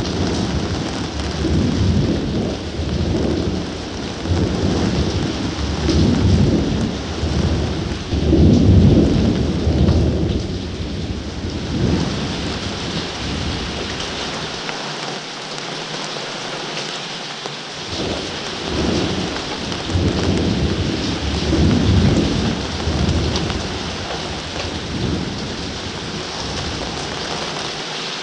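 Steady rain with thunder rumbling again and again. The rumbling eases off about halfway through and swells up again briefly a few seconds later.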